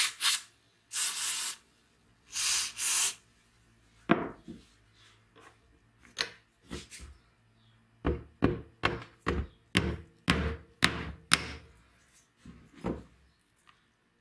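Two short hisses of aerosol penetrating spray onto a rusted chainsaw clutch, then a run of hammer blows on a metal punch set against the clutch shoes, quickening to about three a second.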